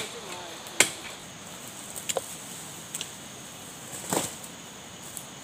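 A handful of sharp, separate knocks, about a second apart, then a short rustle of large banana leaves being spread on the ground about four seconds in.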